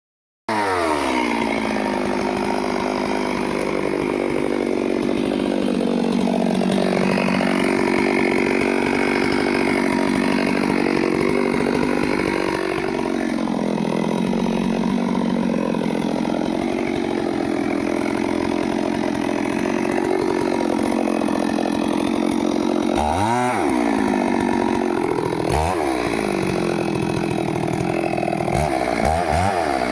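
Stihl two-stroke chainsaw running at high revs and cutting into teak wood, its engine pitch sagging and recovering as the chain bites. From about three quarters of the way through, the engine drops sharply to a low pitch and revs back up several times.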